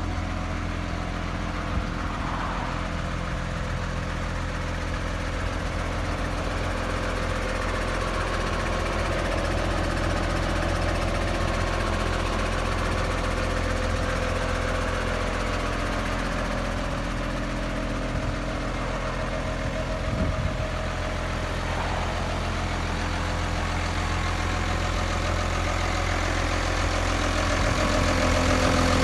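New Holland T7030 tractor's six-cylinder diesel engine idling steadily, with a couple of faint knocks and a slight rise in level near the end.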